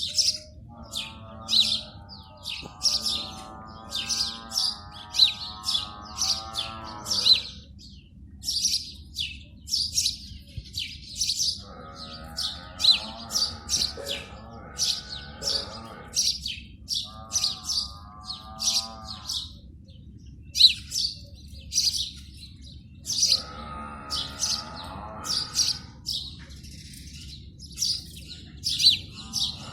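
House sparrows chirping over and over, short high chirps coming one after another. In four stretches of a few seconds each, a lower, wavering drawn-out sound with many overtones joins in under the chirps.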